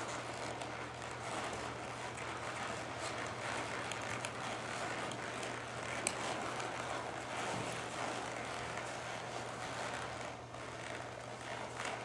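Steady hiss of background noise with a constant low hum, broken by a few faint, irregular clicks and knocks.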